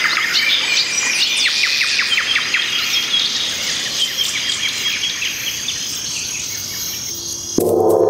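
Nightingale singing: rapid chirps, trills and whistled notes over a steady high trill. About seven and a half seconds in, the song breaks off and low sustained music comes in.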